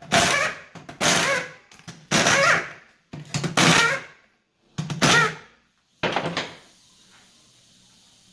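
Six heavy blows on metal, about one a second, each ringing out briefly; they stop about six seconds in, leaving a faint hiss.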